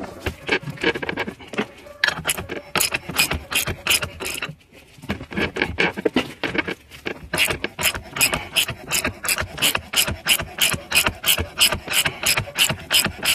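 Socket ratchet clicking as it turns a thread tap through the port of an aluminium H22 thermostat housing, cutting threads for a -6AN fitting. The clicks come unevenly at first, pause briefly near the middle, then settle into a steady run of about three or four a second.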